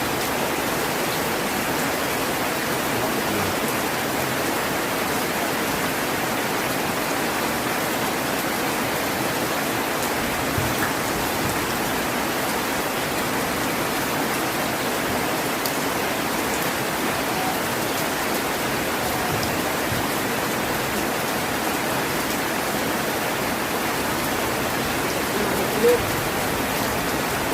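Heavy rain falling steadily, an even hiss of many drops. One brief pop stands out near the end, with a fainter one about ten seconds in.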